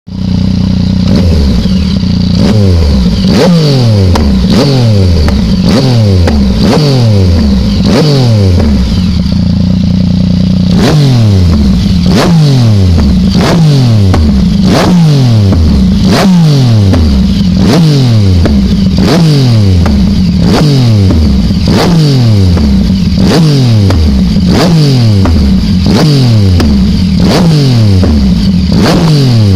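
Yamaha MT-09 Tracer's three-cylinder engine, breathing through an aftermarket Arrow exhaust, blipped over and over a little more than once a second, each rev dropping straight back, with a sharp crack at each blip as the exhaust spits flame. There is a short pause about ten seconds in.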